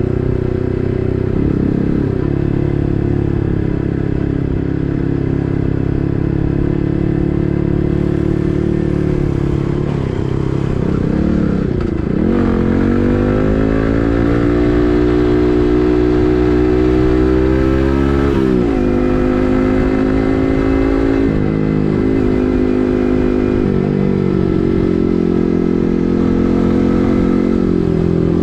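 Yamaha MT15's 155 cc single-cylinder engine through an SC Project full-system exhaust, riding along. The engine note holds fairly steady, then climbs steadily for about six seconds under acceleration before falling away sharply about two-thirds of the way through and carrying on at a lower, varying pitch.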